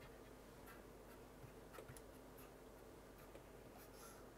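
Near silence: a steady faint hum with a few light clicks and taps of hands handling a circuit board on a silicone mat.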